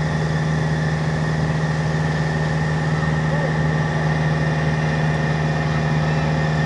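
Heavy diesel engine of a construction machine running at a steady idle, an even low hum with no revving.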